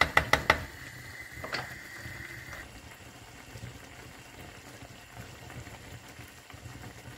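Tomato sauce simmering in a frying pan, bubbling steadily over low heat. A wooden spoon taps against the pan several quick times at the start and once more about a second and a half in.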